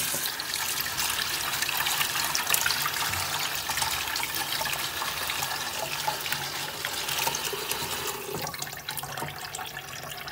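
Kitchen faucet running into a stainless steel sink and over a pan in the basin, with a hand rinsing under the stream; a steady rush of water.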